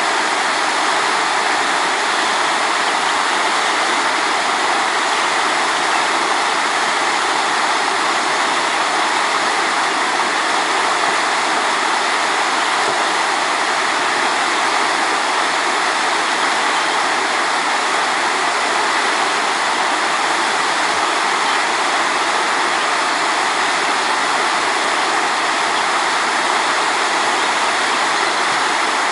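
River water rushing over rocks, a steady, even rush with no change throughout.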